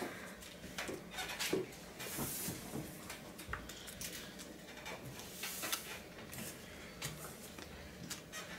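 Paper raffle slips being picked up and handled on a wooden tabletop: light rustling with scattered small taps and scrapes.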